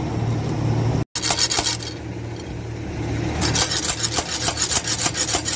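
Rapid, rhythmic metallic rasping from hand-tool work on a Hino 700 truck's ZF gearbox casing as its range cover is being removed. It comes in a short spell and then a longer one from about three and a half seconds in.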